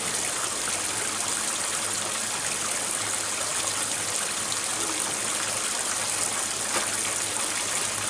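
Water pouring from a pipe and splashing steadily into a pond, an even, unbroken rush of water.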